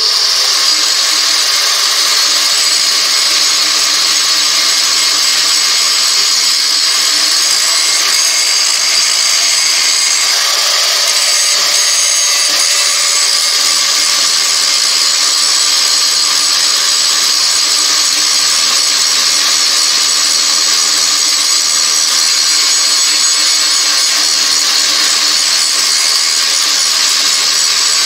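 Angle grinder grinding an old high-carbon steel metalworking file clamped in a vise, shaping it into a knife blade: a loud, steady high-pitched grinding whine of disc on steel.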